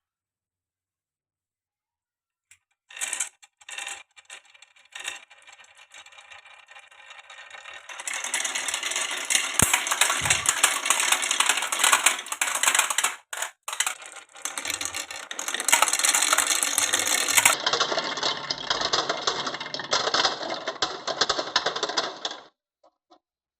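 Marbles rolling and clattering down a wooden marble run. A few separate clicks at first, then a long stretch of dense, continuous rattling that stops suddenly near the end.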